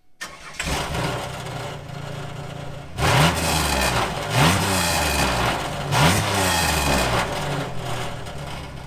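Camaro's 3800 Series II V6 running through a failing muffler, blipped up in revs three times, about three, four and a half and six seconds in, then settling back to a steady idle. It sounds really bad: the muffler is coming apart, with a rotten seam, a split case and a crack, and it is rattling.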